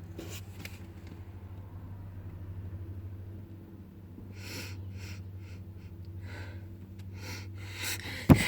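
A steady low hum throughout, with several short hissing noises from about halfway and a sudden loud bump near the end.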